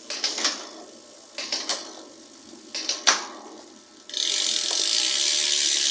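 Bicycle drivetrain being test-shifted with a newly fitted Shimano Acera rear derailleur: three quick bursts of clicks and clunks as the chain moves across the cassette. About four seconds in, a steady, fast ratcheting buzz from the rear hub sets in. The derailleur is shifting properly.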